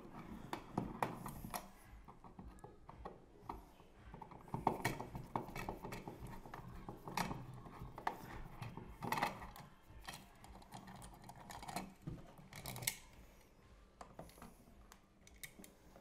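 Screwdriver backing out the metal mounting screws of a wall light switch: faint, irregular clicks and scrapes as the screws turn and the switch yoke loosens in the box.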